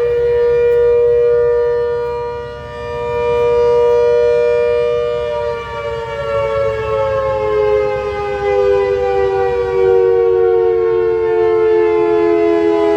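ACA Hurricane MKII civil defense siren sounding its two-tone chord, loud, its level swelling and dipping as the rotating horn sweeps around. About five seconds in, the pitch begins to fall slowly and keeps sliding down.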